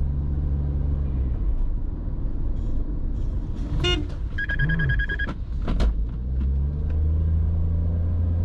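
Car driving, heard from inside the cabin: a steady engine and road rumble. About four seconds in comes a short horn-like toot, then a steady high beep lasting about a second. Near the end the engine note rises as the car speeds up.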